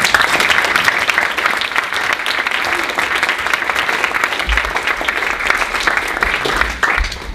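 Audience applauding steadily, the clapping thinning out near the end.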